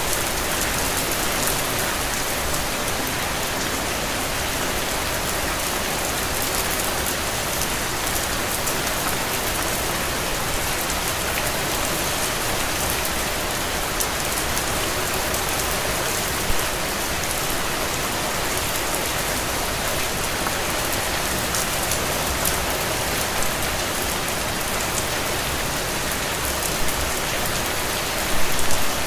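Steady rain falling on a window, an even hiss dotted with individual drop taps, with a few brief louder spatters, the loudest just before the end.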